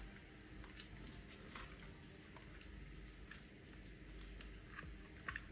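Faint handling of cables and a plastic power supply unit: scattered light clicks and rustles, with two sharper clicks near the end.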